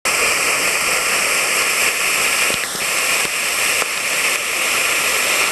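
Waterfall pouring down at close range, heard from right under the falling water: a loud, steady rush.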